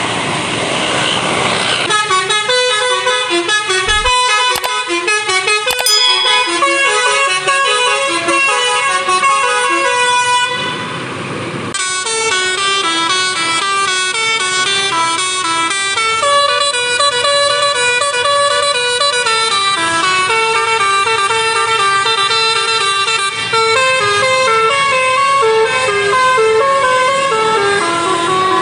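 Basuri multi-tone 'telolet' horn on a Jetbus 5 tour bus playing a quick stepped tune of short notes. It breaks off for about a second under a rush of noise about ten seconds in, then plays on.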